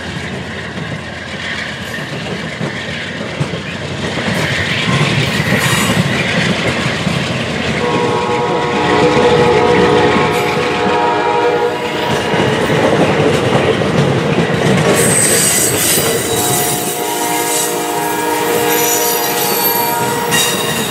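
Amtrak passenger train pulling out of the station, its cars rolling past with steady wheel rumble and clicking over rail joints that grows louder about four seconds in. From about eight seconds in, a steady multi-note horn chord sounds, fading and returning, and thin high-pitched wheel squeal joins in the last few seconds.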